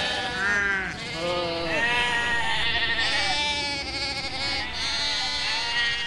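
A herd of goats bleating over one another in a string of wavering calls: hungry goats calling for food.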